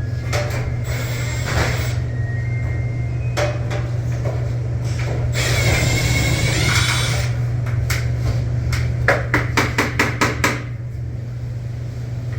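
Hand-tool work on refrigeration equipment: scattered knocks, a couple of seconds of hissing noise around the middle, then a quick run of about eight sharp knocks, about five a second, near the end. A steady low hum runs underneath.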